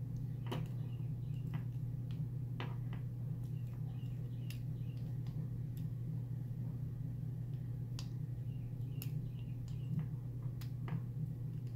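Faint, irregular metallic clicks and ticks of a lock pick working the pins of a Master Lock lockout padlock under tension, single pin picking, over a steady low hum.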